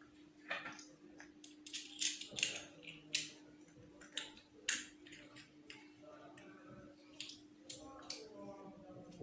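Small tools clicking and scraping against a wristwatch being worked on by hand: a dozen or so irregular sharp clicks and short scrapes, the loudest in the first half, over a faint steady hum.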